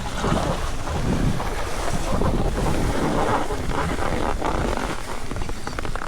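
Wind buffeting the microphone: a loud, rushing noise that swells and eases.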